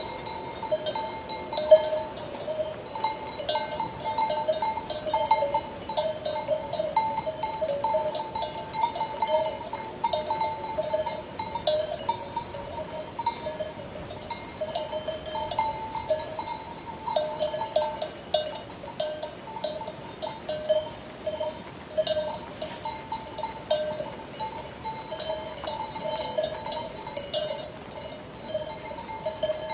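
Sheep bells clanking unevenly and continuously, at two main pitches.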